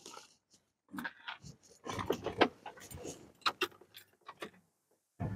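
Keys jangling, with scattered clicks and knocks in several short bursts, as the truck's ignition key is handled just before a start.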